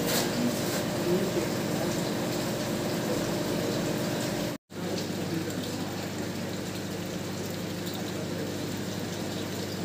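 Steady rushing of aquarium tank water and aeration, with indistinct voices behind it. The sound cuts out for a split second about halfway through.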